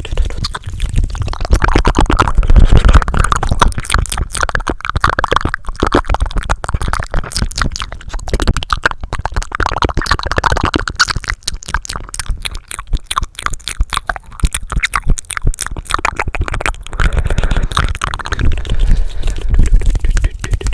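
Fast, aggressive ASMR mouth and hand sounds close to the microphone: a dense, unbroken run of rapid clicks, pops and rubbing with a heavy low rumble.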